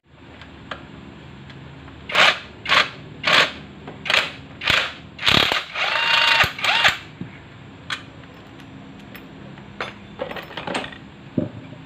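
Hand ratchet wrench loosening the bolts of a scooter's CVT cover: about eight quick ratcheting strokes in a row, with a short squeak near the end of them, then a few light metal clicks.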